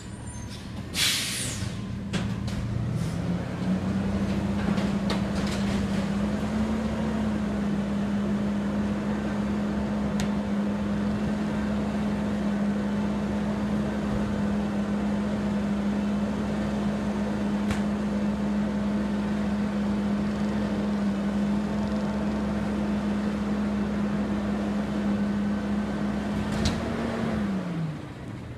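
Autocar garbage truck with a Heil Curotto-Can front loader, stopped while emptying recycling carts: a short air hiss about a second in, then the diesel engine revs up and holds steady at raised revs while the cart-tipping hydraulics work, dropping back to idle near the end. A few faint clanks come from the can and arm.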